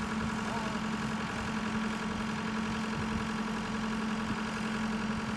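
Backhoe engine idling steadily with an even hum.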